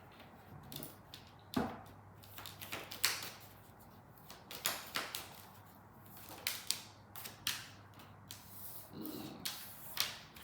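Tarot cards being handled, shuffled and drawn: irregular light snaps, flicks and taps of the cards, a dozen or more spread through the stretch.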